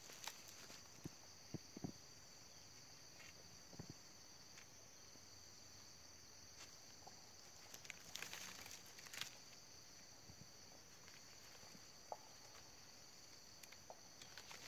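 Faint, steady high insect chorus, with scattered light snaps and a brief rustle around the middle from dry cane stalks being stepped on and handled.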